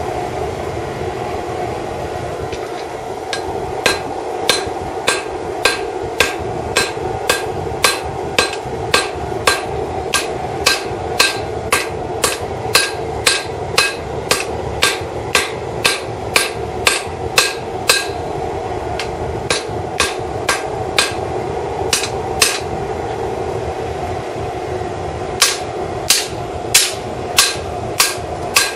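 Hand hammer forging a hot leaf-spring steel bar on an anvil: ringing blows in a steady rhythm a little under two a second, starting about four seconds in, with two short pauses in the second half. Under it runs the steady sound of a small homemade propane forge burner.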